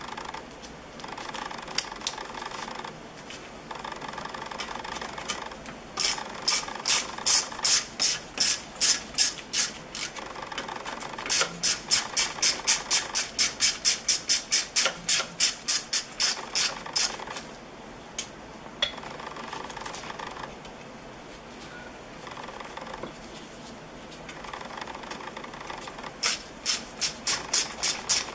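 Ratchet wrench clicking in quick, even runs of about four to six clicks a second, with pauses between runs, as the bolt on a bicycle reflector clamp is turned.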